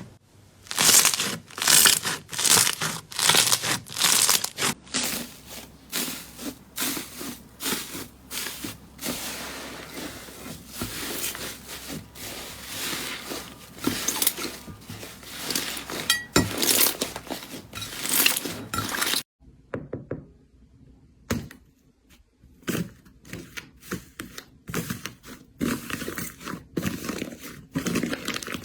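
Hands squishing, poking and stretching slime, making rapid, dense pops and crackles with soft thunks. It stops for a couple of seconds about two-thirds of the way through, then resumes with sparser, quieter squishing.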